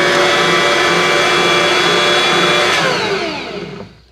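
Bosch stand mixer's motor running steadily with its dough hook stirring a watery mix of oats, butter and hot water, then switched off about three seconds in, its whine falling as the motor winds down.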